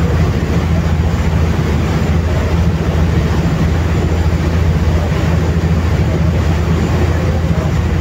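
Steady low drone of a passenger ferry's engine, with the rushing wash of its churning wake.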